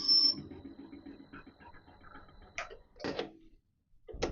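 Myford lathe counterboring a steel bush. A high cutting whine stops just after the start, and the lathe runs on with a fading rhythmic ticking. Then come a few sharp knocks and clicks of handling on the machine.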